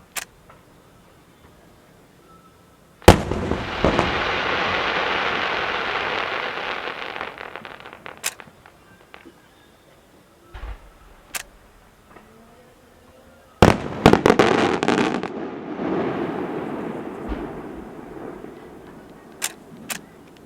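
Maltese festa fireworks going off. A loud bang about three seconds in is followed by several seconds of dense crackling that dies away, and a quick cluster of bangs past the middle brings another long, fading crackle. A few single sharp reports fall between them.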